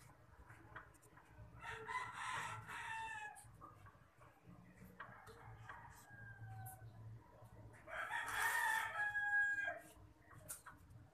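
A rooster crowing twice, each crow about two seconds long with a falling end, with a fainter call in between.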